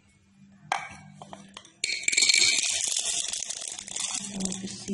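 Roasted chickpeas and almonds poured from a glass bowl into a grinder jar: a single clink about a second in, then a dense rattling patter of hard dry grains from about two seconds in, thinning out near the end.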